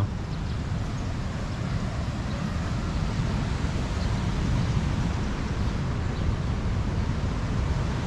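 Steady rush of ocean surf mixed with wind buffeting the microphone, a continuous low rumble.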